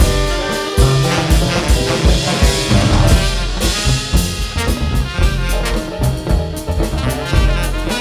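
Live jazz ensemble playing: a horn section of saxophones, trumpet and trombone together over upright bass, piano, guitar and a drum kit.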